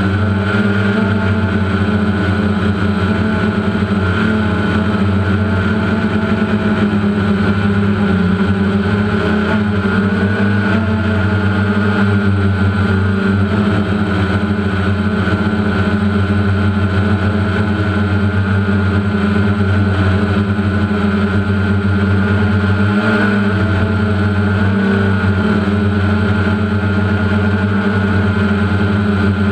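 DJI Phantom quadcopter's electric motors and propellers whining steadily, heard up close from the GoPro mounted on the drone, the pitch wavering slightly as it flies.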